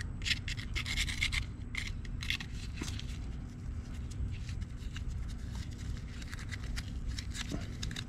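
Metal pick scratching and scraping caked dirt and mud out of a Honda Foreman 500 ATV's front brake caliper, in quick, irregular scratches, busiest in the first second or so.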